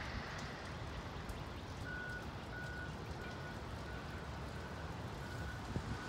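A vehicle's reversing beeper sounds about seven times, a short high beep roughly every two-thirds of a second, starting about two seconds in, over a steady low outdoor rumble.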